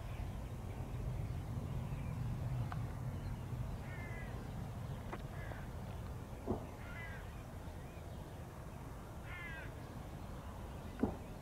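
Crows cawing, a handful of short harsh calls spread across several seconds, over a steady low rumble. Two sharp knocks stand out, one about midway and one near the end.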